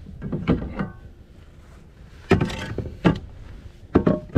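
A series of sharp knocks and clunks: a short clatter in the first second, then four separate knocks in the second half, some with a brief ring.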